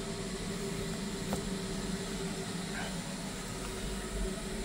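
A steady low mechanical hum under a background hiss, unchanging throughout.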